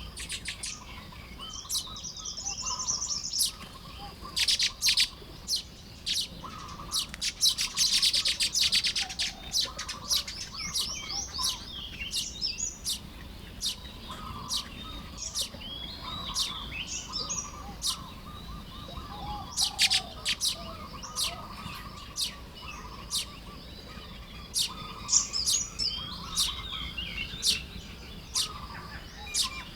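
Baya weavers chirping and chattering during nest-building, several birds calling over one another, with dense bursts of rapid chatter now and then.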